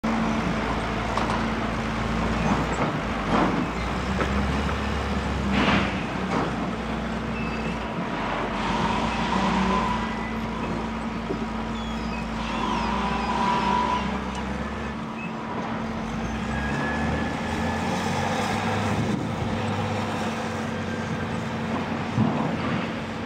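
Volvo L120 wheel loader's diesel engine running under load while it handles logs, with a hydraulic whine that rises and falls and a few sharp clunks.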